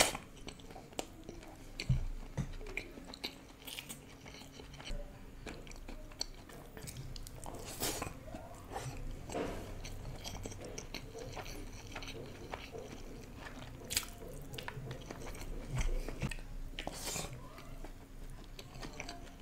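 Close-miked eating: a man chewing hand-fed mouthfuls of biryani, with wet mouth smacks, scattered sharp clicks and several louder bites and crunches spread through.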